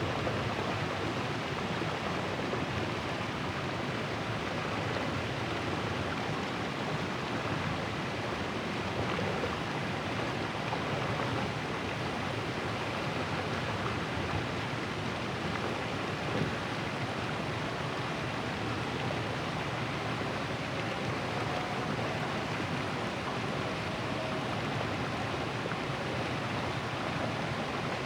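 River water rushing steadily over and around rocks: an even, unbroken roar of flowing water.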